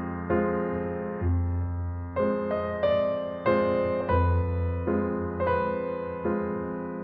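Slow, gentle piano music: notes and chords struck about once a second, each ringing and fading, over a deep bass note struck every few seconds.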